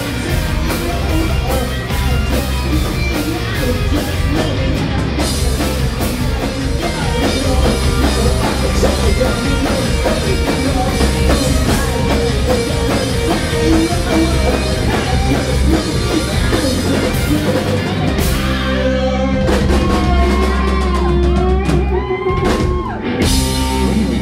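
Live indie rock band playing loud: electric guitars, bass and drum kit, with a singer. About three quarters of the way through, the playing thins out to held guitar notes and separate drum hits.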